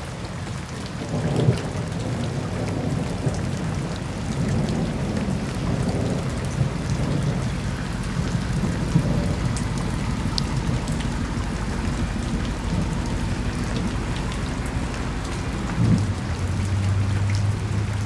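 Rain and wet-road noise over the low rumble of a BMW M550i's twin-turbo V8 as the car drives, with scattered small ticks of raindrops. Near the end the engine settles into a steady low hum.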